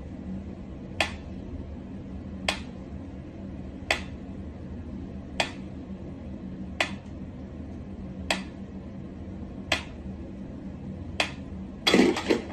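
Mechanical pendulum metronome ticking slowly and steadily, one sharp tick about every second and a half. Near the end a louder, brief burst of noise breaks the beat, followed by a couple of quicker clicks.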